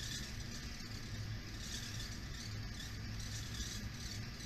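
Materials testing machine running with a steady low hum while it holds a 3D-printed bar under about 200 lb in a three-point bend fixture.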